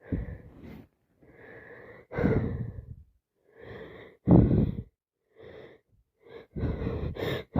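A woman with a heavy head cold gasping and breathing hard through the build-up to a sneeze: a quieter breath in, then a louder burst out, several times over, the loudest about four and a half seconds in.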